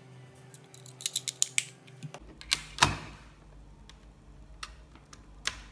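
Small plastic clicks and taps from a Logitech M330 wireless mouse and its USB receiver being handled: a quick run of light clicks about a second in, two louder clicks near the middle, then a few scattered ticks.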